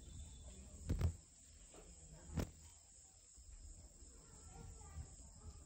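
Night insects calling steadily and faintly in the background, broken by two sharp knocks about one and two and a half seconds in.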